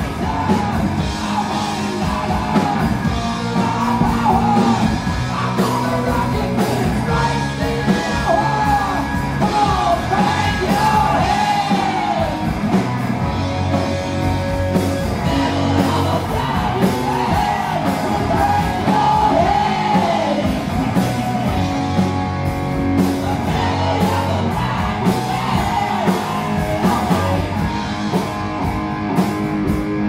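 Live rock band playing: a singer yells and sings into a microphone over drum kit, bass guitar and electric guitar.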